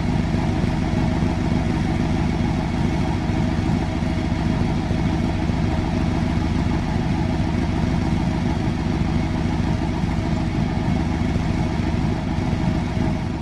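Large engine idling steadily, an even low rumble that starts fading out just at the end.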